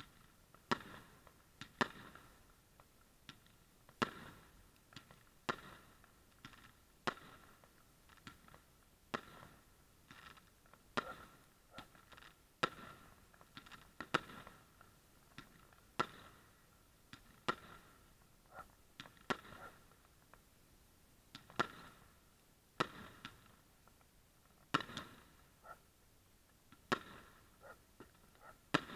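Fireworks going off overhead: a long run of sharp bangs at uneven intervals, roughly one every second.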